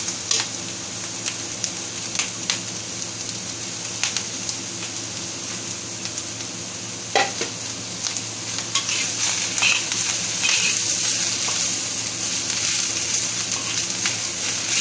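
Diced zucchini, ham and egg sizzling in a wok, stirred with a metal spatula that scrapes and taps against the pan now and then. The sizzle grows louder about halfway through, over a steady low hum.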